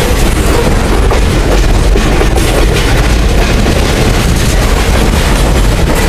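Loaded freight cars rolling past close by, their steel wheels rumbling steadily on the rails with a continuous clatter.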